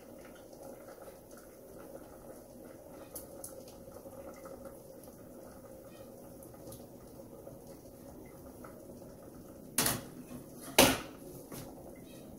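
Coconut milk poured from a can into a steel cooking pot, faint over a steady hum. About ten seconds in come two sharp knocks, a second apart, as the nearly empty can is tapped to get the last of the milk out.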